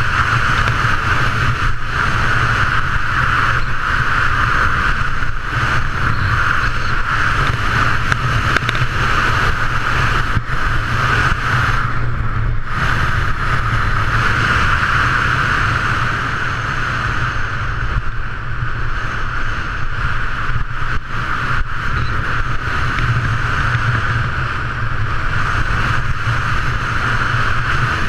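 Steady, loud rush of wind on an action camera's microphone as a skier runs fast down a groomed piste, with the skis running over the snow mixed in.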